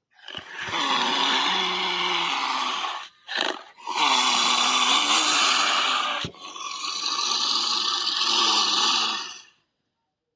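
Monster creature roar sound effects: three long, harsh roars of a few seconds each, with a short burst between the first two.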